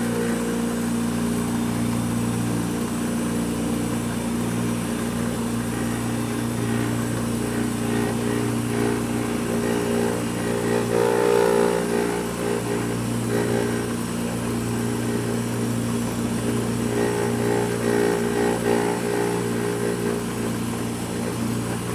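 Milling machine spindle running at 1800 RPM, with a quarter-inch high-helix two-flute end mill cutting dry through the wall of a round tube at an increased feed rate. A steady hum of several tones, which swells briefly about eleven seconds in.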